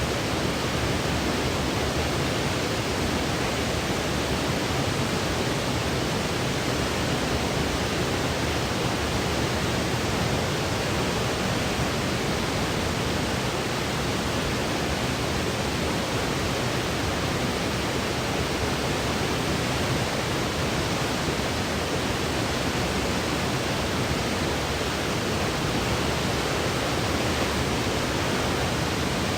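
Steady synthetic white noise, an even hiss with no change throughout.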